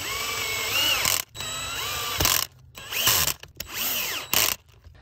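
Cordless drill-driver driving the bonnet screws back into a sprinkler valve after a diaphragm replacement: about four short runs of motor whine, each rising in pitch, with a sharp click partway through.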